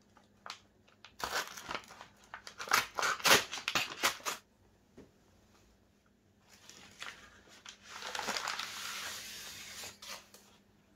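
Brown paper mailer crinkling and tearing as a utility knife cuts it open, a run of sharp crackles. After a short pause comes a longer, smoother rustle of paper as the cardboard box inside is slid out.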